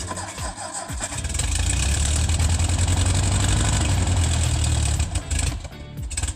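Gehl Hydracat 4400 skid steer's engine being cranked over in the cold, a machine that can start hard in winter. It turns over in uneven strokes, then runs louder and steadier from about a second in before stopping near the end.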